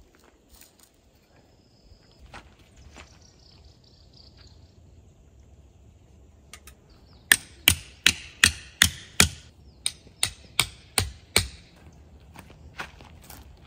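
Aluminum tent stake being hammered into the ground: about a dozen sharp, ringing strikes at roughly three a second, then two more near the end.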